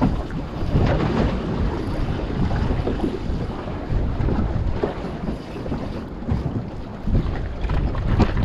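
Strong wind buffeting the microphone in uneven gusts, over choppy sea sloshing around a small boat at anchor.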